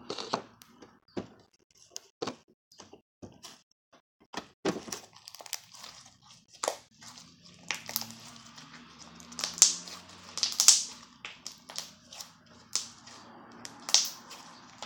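Glossy slime being stretched, folded and squeezed by hand, giving irregular sharp pops and clicks, the loudest ones about two-thirds of the way through and again near the end.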